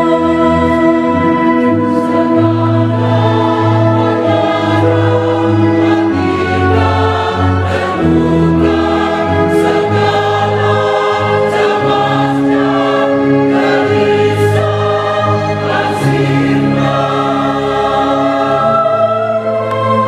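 Mixed church choir of women and men singing a hymn in several parts, holding long notes.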